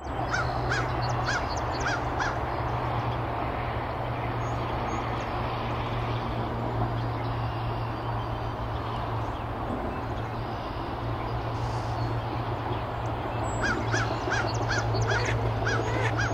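Mallard hen quacking in quick runs of short calls: a few in the first two seconds, then a longer run near the end. A steady low hum runs underneath.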